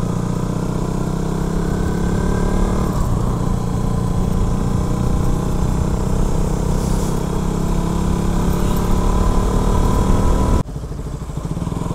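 KTM RC 200's single-cylinder engine running steadily at low speed. Near the end the sound drops suddenly to a quieter level and carries on.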